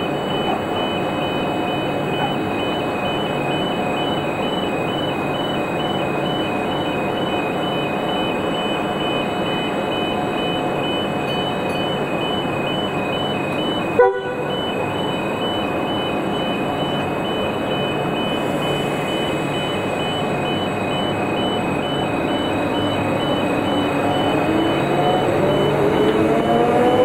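Train running past with a steady rumble, one sharp knock about halfway through, and a rising engine note growing louder near the end.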